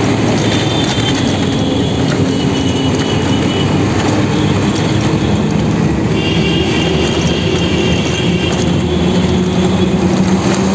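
City bus running through traffic, heard from inside with its windows open: a steady engine drone and road noise, with a faint high whine now and then.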